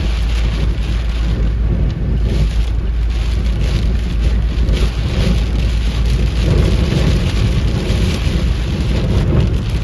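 Heavy rain beating on a car's windshield and roof, over the steady rumble of the car driving on a wet road, heard from inside the cabin.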